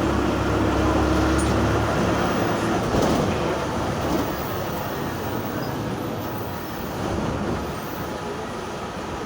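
Engine and transmission of a VW 17-230 OD city bus (MAN D0834 4.6-litre four-cylinder diesel with a ZF 6S-1010 BO gearbox) running, with the distinctive growl of its freshly reconditioned gearbox. A steady whine stops with a knock about three seconds in, after which the sound eases off a little.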